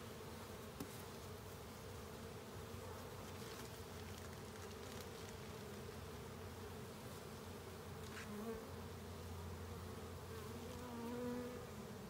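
Honey bees buzzing around an open hive, a steady faint hum. A single bee buzzes louder as it flies close past, once about two-thirds of the way through and again near the end.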